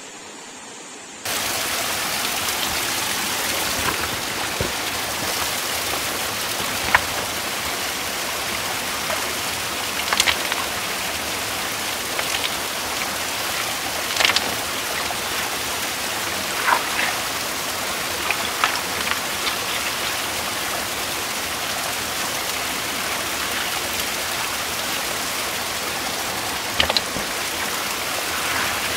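Mountain stream rushing steadily, starting about a second in, with a few sharp stone-on-stone clicks and knocks as rocks are shifted by hand in the shallow water.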